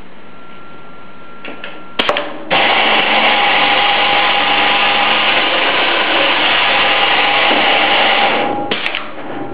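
Minifix boring machine's motor switched on with a click about two seconds in, then running loud and steady with a held whine for about six seconds before shutting off near the end.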